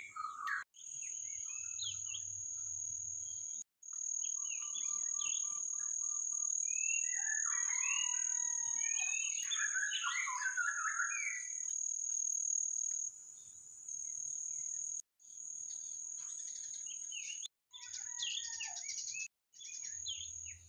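Birds chirping and calling, busiest in the middle, over a steady high-pitched insect drone. The sound drops out briefly several times.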